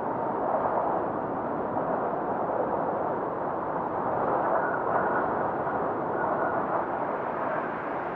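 Steady rushing, wind-like noise of a snowfall ambience track, a dull rush with no distinct events, swelling and easing slightly a few times.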